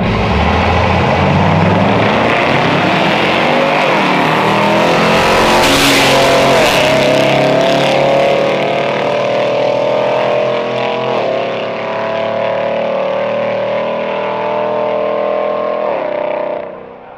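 A racing vehicle's engine accelerating hard through the gears: its pitch climbs steadily and drops sharply at each of several gear shifts, then the sound cuts back near the end.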